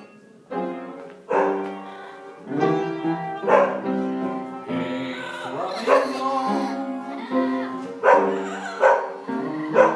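Instrumental introduction to a song: chords played live on an instrument, each starting sharply, in a steady pulse about once a second.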